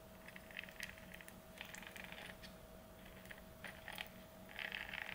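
Faint clicking and rattling of small metal RC truck parts being handled and fitted by hand, in several short clusters, over a faint steady hum.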